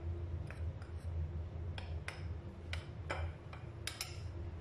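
Metal spoon stirring flour in a ceramic bowl, knocking against the bowl in a series of irregular light clicks, over a steady low hum.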